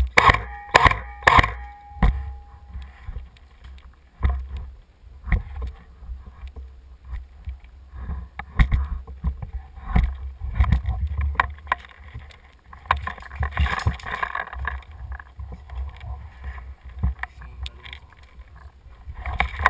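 Scattered sharp clicks and knocks of an airsoft game, three close together near the start, over a steady low rumble of wind and handling on a body-worn camera, with a longer noisy stretch about two-thirds of the way through.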